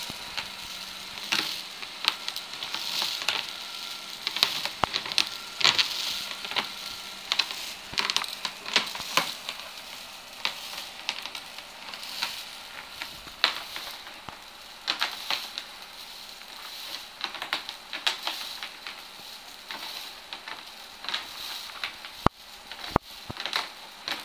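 A DIY maggot-sifter prop jostling its filling: a continuous dry rustle with many irregular clicks and ticks, and two sharper clicks near the end.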